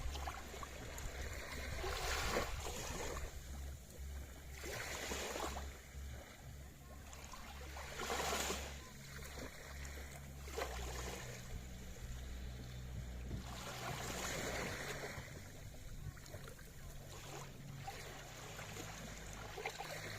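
Sea waves washing in, one surge of surf swelling and fading every two to four seconds over a steady low rumble.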